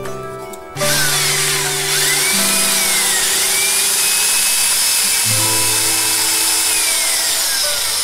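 Corded electric drill spinning a steel nail in its chuck while sandpaper is held against it to polish it to a shine: the drill starts about a second in and keeps running, its motor whine rising and dipping, over a steady hiss of sandpaper on the spinning metal.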